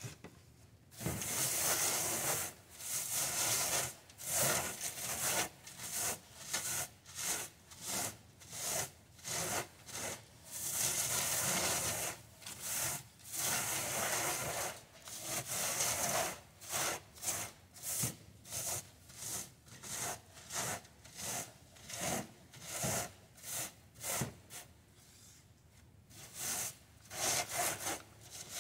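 Gloved hand rubbing dried mad-dog skullcap seed pods back and forth across a wooden-framed wire mesh screen, breaking the pods down to free the seeds. There are a few long strokes at first, then quicker strokes of about one and a half a second, with a brief pause near the end.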